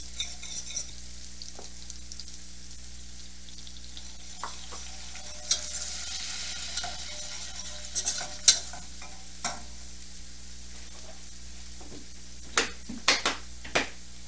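A wire whisk stirring flour into melted butter in a stainless steel saucepan to start a roux, over a steady sizzle from the pans. Sharp clicks of the whisk against the pan come now and then, with four in quick succession near the end.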